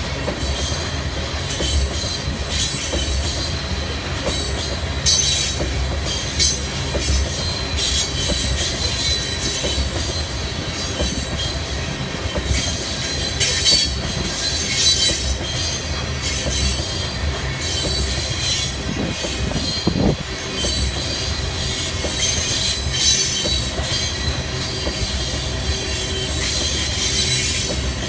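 Crude-oil tank cars of a freight train rolling past close by: a steady low rumble of steel wheels on rail, with short, high wheel squeals every few seconds.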